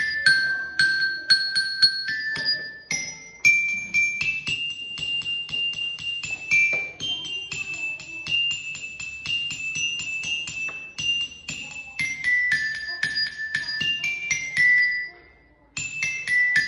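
Peking (saron peking), the small high-pitched gamelan metallophone, struck in a quick melodic run of about four to five notes a second, with many notes repeated. The playing breaks off briefly about a second before the end, then picks up again.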